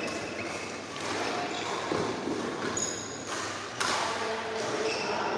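Badminton rally: sharp racket-on-shuttlecock hits, the loudest about four seconds in, with short high squeaks of shoes on the court mat, echoing in a large hall.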